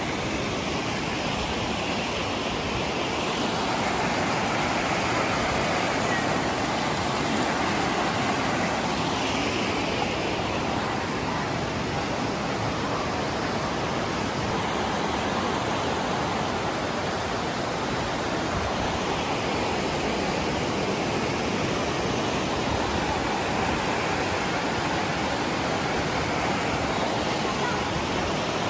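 Steady rush of river water pouring over rock rapids and a small waterfall into a pool.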